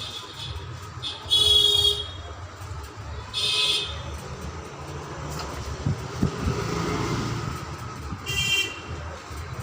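Three short, high-pitched horn toots over steady traffic noise.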